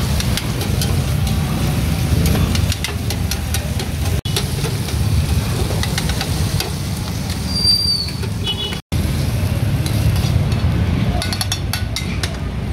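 Pork sisig sizzling on a hot cast-iron sizzling plate, with a metal spoon and spatula scraping and clinking against the plate in quick irregular clicks. A steady low rumble runs underneath.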